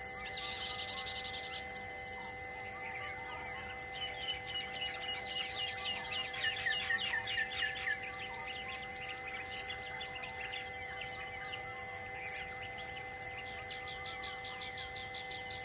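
Wild birds calling over a steady insect chorus: rapid series of short falling notes that grow louder toward the middle, on a bed of constant buzzing and evenly repeated high chirps.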